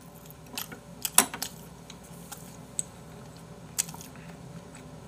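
Eating sounds: a person chewing, with a handful of short, sharp clicks and taps, among them chopsticks set down on the serving tray, over a faint steady room hum.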